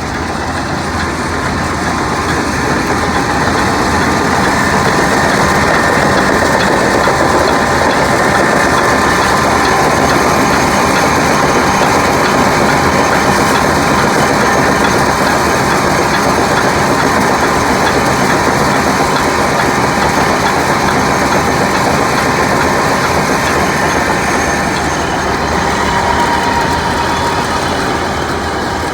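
Combine harvester running steadily while harvesting soybeans: a dense mechanical din of engine and threshing machinery that builds over the first few seconds, holds, and eases a little near the end.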